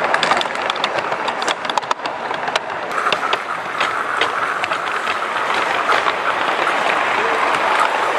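Garden-scale live steam locomotive running, heard from the wagon it pulls: clicking from the wheels and track over a steady hiss, the clicks thickest in the first three seconds.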